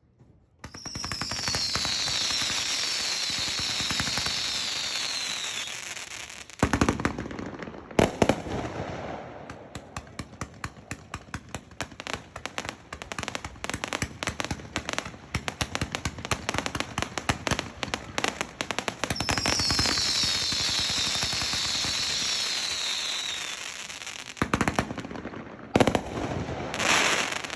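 Sky Bacon "Pigzilla" 142-shot fireworks cake firing. It starts suddenly with a dense hiss of shots and a cluster of falling whistles, then a long run of rapid sharp reports, whistles again, and a few louder single bangs near the end.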